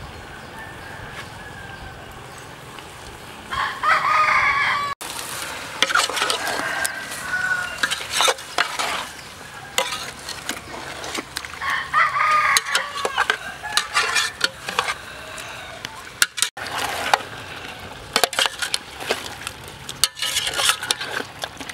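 A rooster crowing twice, about four seconds in and again near the middle. A metal spoon scrapes and clinks against a metal pot as pieces of fish are stirred.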